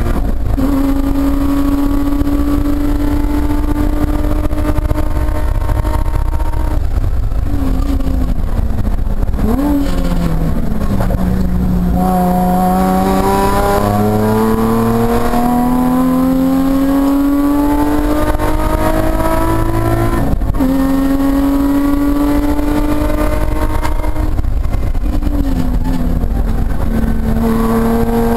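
Nissan Z car's V6 engine, heard from inside the stripped race cabin, driven hard on track. It shifts up right at the start and holds high revs. It then falls in pitch with quick throttle blips as it brakes and downshifts for a corner, climbs steadily as it accelerates out, and drops sharply on an upshift about two-thirds of the way in. Near the end it blips down again and starts climbing.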